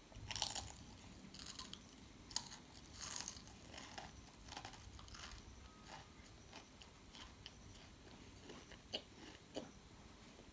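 A person biting and chewing a crisp fried goldfinger snack: loud crunches come thick and fast for about the first five seconds, then give way to softer chewing with a few scattered clicks.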